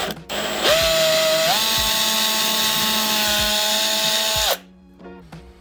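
Electric drill drilling a centre hole through a wooden board: the motor winds up into a steady whine, steps up in pitch about a second and a half in, runs steady, then stops abruptly.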